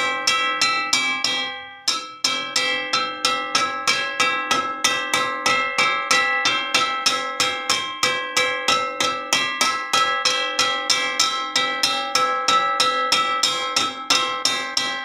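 A wok struck over and over at a quick, even pace, about three to four hits a second, each hit ringing with several metallic tones. The strikes pause briefly about a second and a half in, letting the ring die away, then start again.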